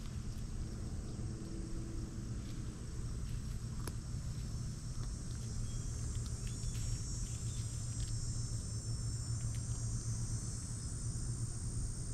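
Summer insects such as crickets or cicadas keep up a steady high buzz over a steady low rumble, with a few faint clicks.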